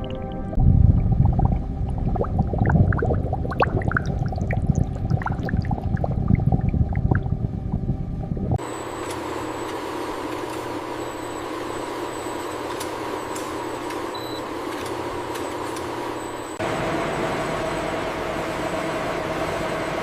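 Industrial processing machinery running. A low rumble with scattered clicks changes abruptly, about eight and a half seconds in, to a steady hiss with a thin high whine, then to a steady hum near the end.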